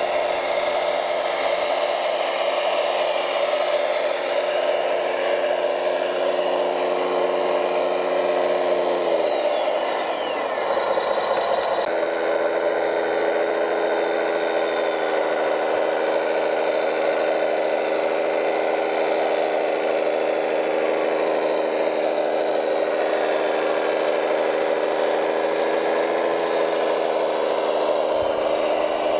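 Radio-controlled construction machines running, a steady motorised whine with a high whir above it. About nine seconds in the pitch falls away and breaks up, then the whine picks up again a little lower some three seconds later and holds steady.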